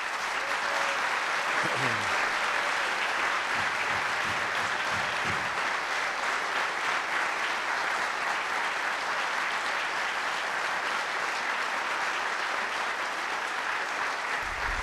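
A large audience applauding steadily and without letting up.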